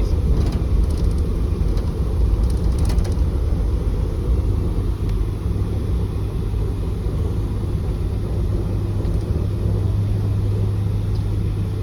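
Vehicle driving over rough ground: a steady low rumble of engine and tyres, with a few faint clicks or rattles in the first three seconds.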